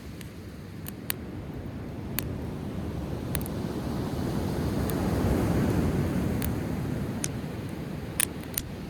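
Driftwood bonfire crackling, with scattered sharp pops, over the steady rumble of breaking surf that swells to a peak midway.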